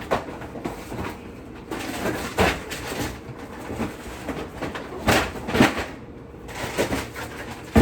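Grocery packages being handled: rustling with a few light knocks, and a sharper knock near the end.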